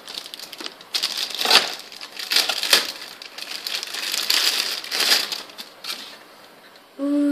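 Clear plastic packaging crinkling and rustling in irregular bursts as it is pulled and peeled off taped plastic toy parts.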